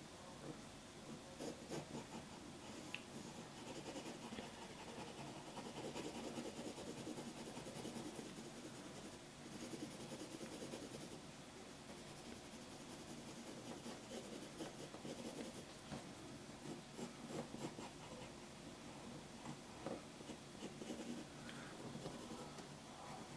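Faint scratching of a pencil on paper, in quick back-and-forth shading strokes.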